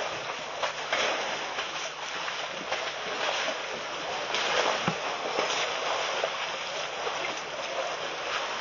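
Water splashing and sloshing with scattered crackles as a herd of African elephants drinks and wades at the edge of a waterhole.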